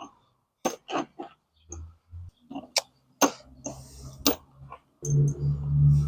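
Loose engine bolts and small metal parts clicking and clinking as they are handled and bagged. A steady low hum starts abruptly near the end.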